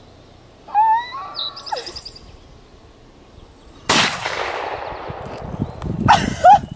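A single gunshot from a shoulder-fired long gun about four seconds in, a sharp crack with an echo trailing off over about a second and a half. A short vocal exclamation comes about a second in, and more voice near the end.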